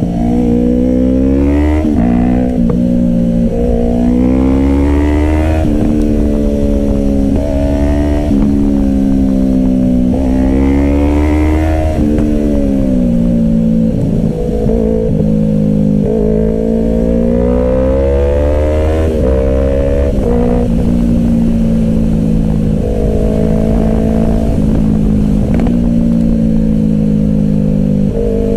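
Yamaha R3's 321 cc parallel-twin engine heard from the rider's seat, revving up and dropping back again and again as the rider accelerates and eases off through bends. The pitch swings most in the first twelve seconds or so, then holds steadier.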